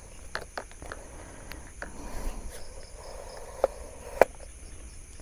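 Steady high-pitched trilling of night insects such as crickets, with a scatter of short clicks and knocks, the sharpest about four seconds in.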